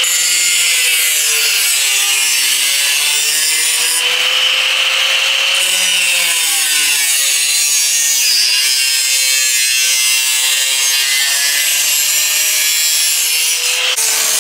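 Angle grinder with its disc cutting and grinding sheet-steel body metal: a steady, loud grinding hiss over the motor's whine, which dips and rises in pitch as the disc is pressed into the metal.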